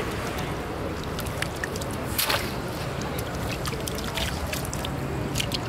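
Water splashing and dripping through a wet fishing net as it is hauled in with its catch, with small fish flicking against the mesh as scattered ticks. There is one louder splash about two seconds in, over a low steady hum.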